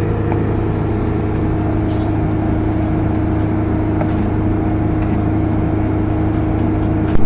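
Stick-welding machine running with a steady low hum while the electrode is set on the work, before the arc is struck. A brief sharp crack just at the end.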